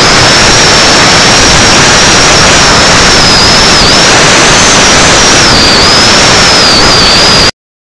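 Model glider's motor and propeller running flat out right by the onboard camera's microphone, a loud rushing noise with a high whine that wavers up and down in pitch. Cuts off abruptly to silence about seven and a half seconds in.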